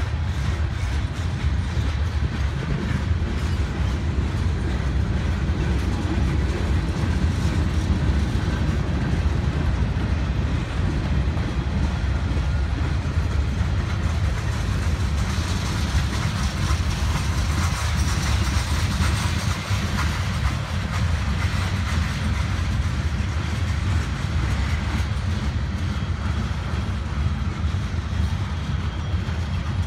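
Freight cars of a slow-moving CSX mixed freight train rolling past on the rails: a steady low rumble with wheel clatter. It grows brighter and noisier for a few seconds midway.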